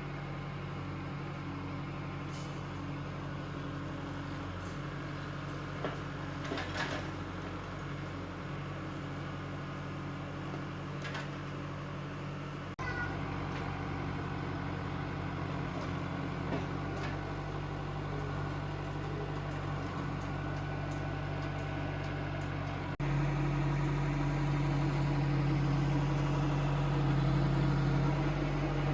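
Heavy diesel machinery engine running steadily at a low, even pitch, with a few faint knocks; the sound jumps abruptly louder twice, about 13 and 23 seconds in.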